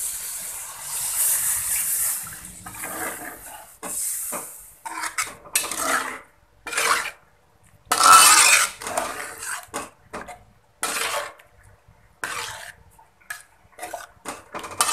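Water pouring into a wok of fried spice paste and beef for about the first four seconds. Then a metal spoon scrapes and knocks against the wok in a string of separate strokes as the broth is stirred, the loudest about eight seconds in.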